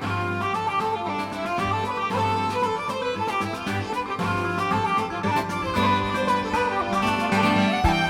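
Background music with fiddle melody over a steady bass line.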